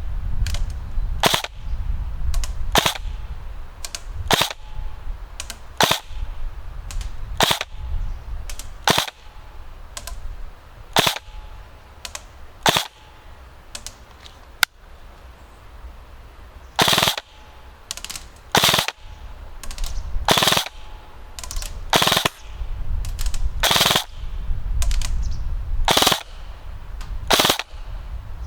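Krytac Kriss Vector electric airsoft gun firing: two-round bursts about every second and a half, then from about fifteen seconds in, short full-auto bursts.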